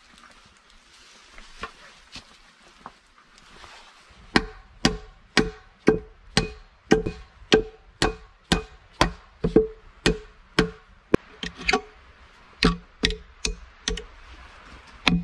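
Soft rustling of sacking being worked into a log wall for about four seconds, then a hatchet chopping into a wooden board in a steady run of sharp blows, about two a second, with a brief pause near the end.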